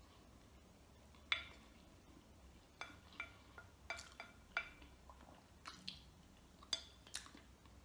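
A spoon clinking and scraping against a bowl while scooping food: about ten light, short clinks spread over several seconds.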